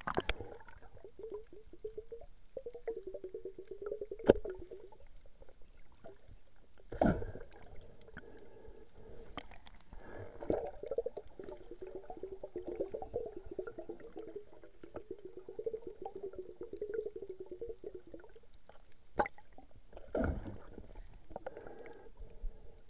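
Muffled underwater bubbling and gurgling with a rapid crackle, heard from inside a waterproof camera housing, broken by a few sharp knocks.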